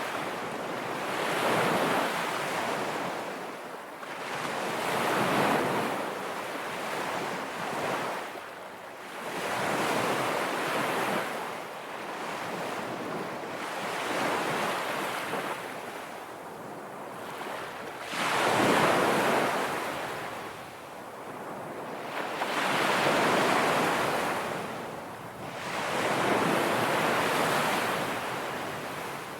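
Ocean surf: waves breaking and washing up a shore, swelling and fading every four or five seconds.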